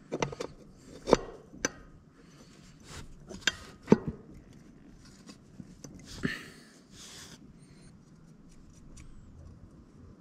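Sharp metal clicks and knocks as a camshaft gear is handled and set into a Predator 212 engine's crankcase, meshing with the crankshaft gear. The two loudest knocks come about a second in and about four seconds in, with a short rustle around six seconds.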